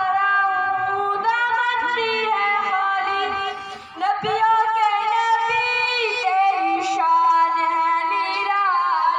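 A boy's high voice in unaccompanied Islamic devotional chanting, amplified through loudspeakers. He holds long, ornamented notes, with a brief pause for breath about four seconds in.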